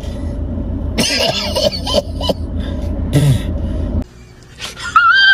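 A man coughing hard in short rough fits, over the steady low hum of a car's engine, as he chokes on cigarette smoke. The hum stops suddenly about four seconds in, and a brief wavering high-pitched tone follows near the end.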